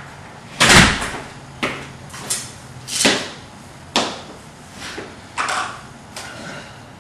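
A door bangs shut about half a second in, then a string of footsteps and lighter knocks follows at roughly even spacing, about one every 0.7 s.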